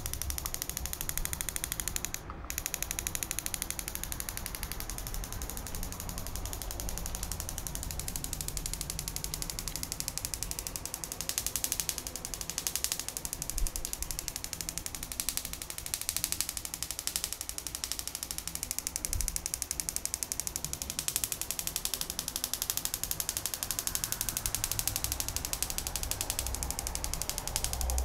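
Spark gap of a small homemade Tesla coil, a spark plug, firing continuously off a 3 V bug-zapper high-voltage module: a steady, rapid crackling rattle of many fast sparks.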